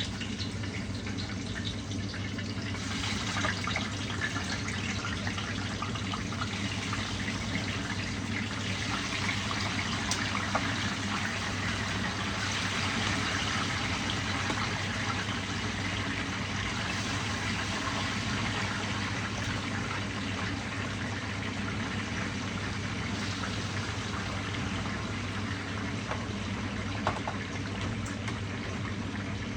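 Fish frying in hot oil in a pan: a steady sizzle with fine crackling, which grows thicker a few seconds in and eases off after the middle. A steady low hum runs underneath.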